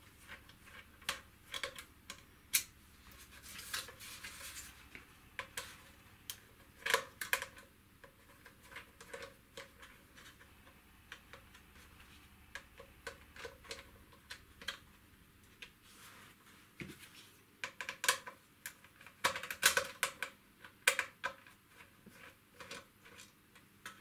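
Irregular small clicks and light plastic knocks as a Torx screwdriver turns out screws from a Dyson V7 cordless vacuum's plastic cyclone housing and the part is handled. The clicks come in busier spells about a third of the way in and again past the middle.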